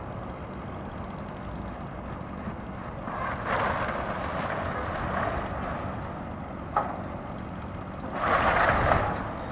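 Excavator demolishing a house: a steady low engine rumble under two bursts of crunching, breaking debris, one about three seconds in and a louder one near the end, with a single sharp crack just before seven seconds.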